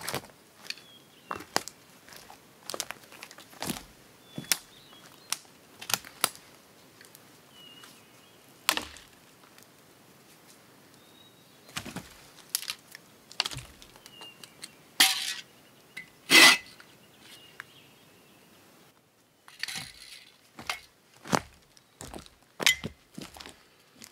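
Dry sticks and twigs cracking and crunching as forest-floor debris is cleared with a hand tool and walked over, in irregular snaps with two louder, longer crunches around the middle.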